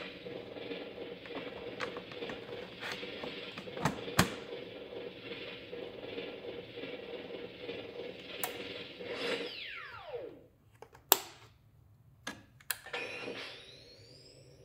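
Hasbro Haslab proton pack's electronic sound effects: a steady idle hum with a couple of sharp clicks, then a falling wind-down as the pack powers down about ten seconds in. A few more sharp clicks follow, then a rising power-up whine that settles into a high steady tone near the end.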